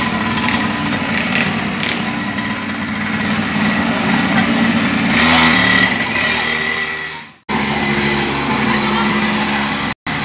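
Tinker Motors 49cc two-stroke pocketbike engine running with a high, buzzing note, revving up about five seconds in as the bike pulls away. The sound fades out suddenly about seven seconds in, then the small engine is heard running again.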